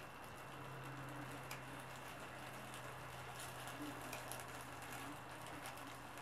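Small wood fire crackling faintly, with sparse sharp snaps over a soft hiss. A low steady hum comes in just after the start.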